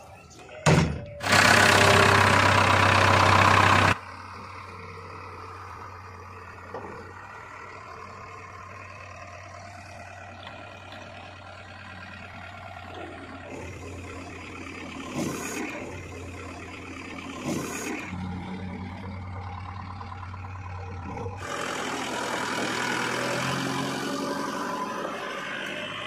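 JCB 3DX backhoe loader's diesel engine: a knock, then a very loud start lasting about three seconds that drops abruptly to a steady idle. About 21 seconds in the engine gets louder and fuller, revving up as the machine goes to work.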